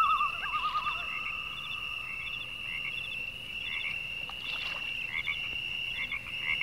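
Chorus of calling frogs and insects: a steady high-pitched trill throughout, with groups of short chirps repeating about every half second and a warbling call in the first second.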